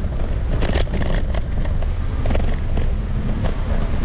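Wind buffeting the microphone of a moving action camera, a steady low rumble, with a cluster of short clicks and scrapes about a second in.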